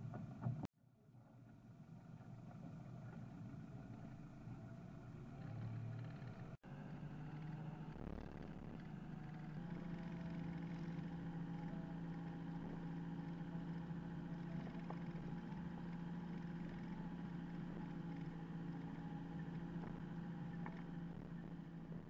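Car engine running at a steady, even pitch as the car rolls slowly along a dirt road, with a few abrupt drop-outs in the first seven seconds.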